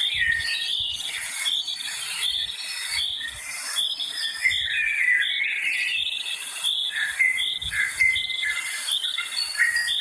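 Birds singing in woodland: several voices, one repeating a short high chirp over and over, with whistled notes below it, over a steady high hiss.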